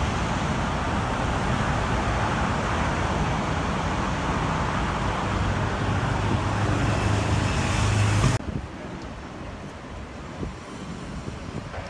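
Dense city road traffic: a steady rush of tyres and engines with a low engine drone that swells near a peak, then cuts off abruptly about eight seconds in to quieter, more distant street traffic.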